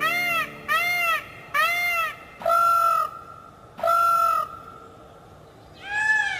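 A bird's honking calls, each rising and falling in pitch. Three come about a second apart, then two louder ones more widely spaced, and one more near the end.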